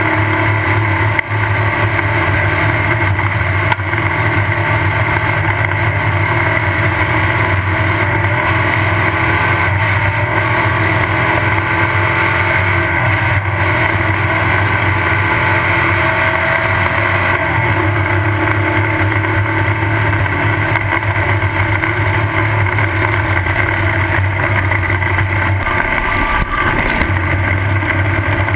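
Off-road race car engine running hard at race speed, heard onboard as a loud, steady drone. The engine note drops briefly near the end, then picks up again.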